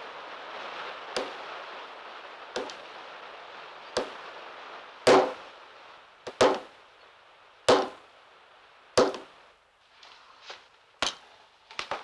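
Wooden planks striking wood: sharp knocks about one every second and a half, loudest around the middle, then a quicker, lighter run of knocks near the end.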